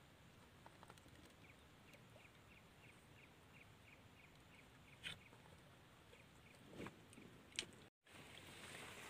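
Near silence: faint outdoor ambience. Early on comes a faint run of about ten soft, evenly spaced ticks, roughly three a second, and a few light clicks follow later.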